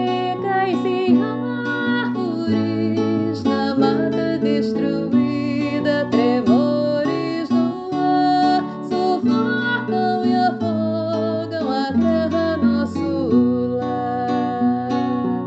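Song played on acoustic guitar, strummed chords, with a woman's voice singing over it.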